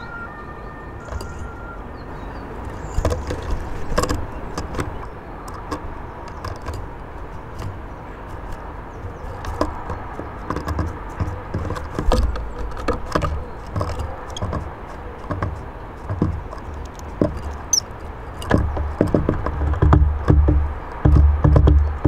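Small tits pecking and hopping on a wooden bird table: irregular sharp taps and clicks over a low rumble that grows louder and more uneven near the end.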